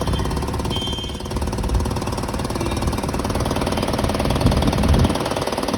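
Volkswagen Vento engine running with a fast, steady rattling clatter: the starting-noise problem the car is in for repair.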